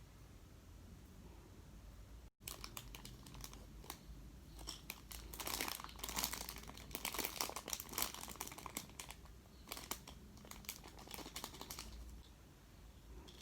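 Plastic crinkling with many quick light clicks, close to the microphone, as squishy toys are handled; the crinkling comes in clusters and is densest in the middle, dying away near the end.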